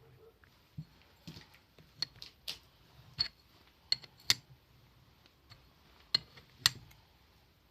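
Irregular light clicks and clinks of small metal parts and tools being handled on a workbench, about a dozen sharp taps with the loudest a little past four seconds and near the end.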